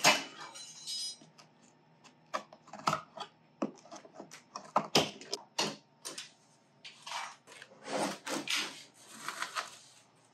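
Metal clips being pried off a wooden shipping crate with a flat-blade screwdriver: a string of sharp clicks, snaps and knocks of metal on wood, loudest right at the start, with longer scraping sounds near the end.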